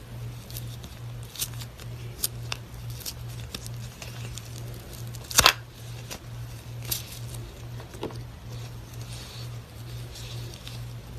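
Slime being squeezed and stretched by hand: scattered sticky clicks and small pops, with one louder crackling pop about five seconds in. A steady low hum runs underneath.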